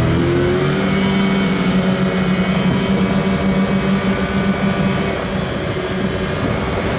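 Twin 30 hp outboard motors on an aluminium boat running at speed. Their revs climb in the first second, then hold steady at high throttle over the rush of water and wind.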